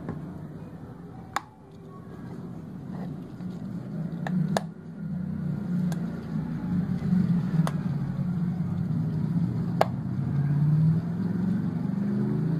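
Gasoline poured from a plastic jerry can through a plastic bottle funnel into a motorcycle fuel tank: a low, uneven gurgle of fuel running in that builds after a couple of seconds, with a few sharp plastic clicks and taps.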